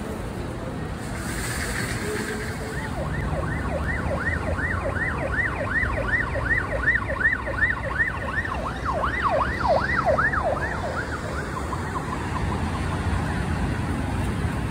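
Emergency vehicle siren on a fast yelp, its pitch sweeping up and down about three times a second. It starts a few seconds in and fades out near the end, over a steady hum of road traffic.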